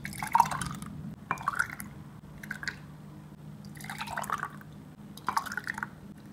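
Almond milk with agar (China grass) jelly cubes poured from a steel bowl into glass tumblers, in five short splashing pours.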